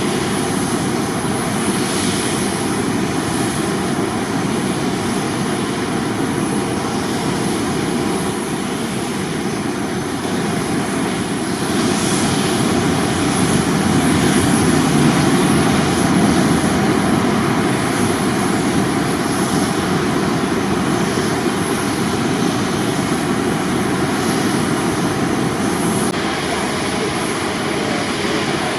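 Jet airliner engines running: a continuous loud roar with steady whining tones over it, growing louder around the middle and then easing off.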